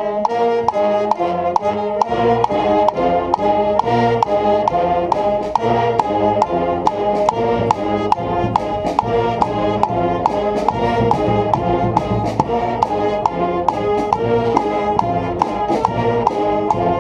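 Brass street band with drums playing a simple repeated riff on three notes, concert B flat, A flat and F, with players joining in on a leader's count. A fuller low part comes in about two seconds in.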